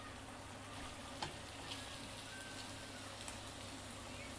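Pork and onions in soy sauce and mirin sizzling gently in a nonstick frying pan as they are stirred with wooden chopsticks. A few sharp clicks of the chopsticks against the pan, the loudest about a second in.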